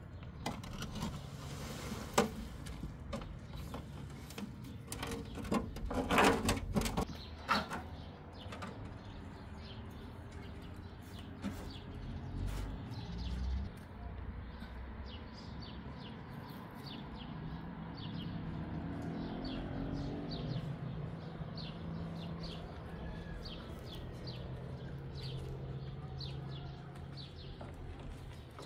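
Soil sliding and scraping out of a tipped metal wheelbarrow, with knocks and a dull thud, then hands working the loose soil. Small birds chirp repeatedly in the background.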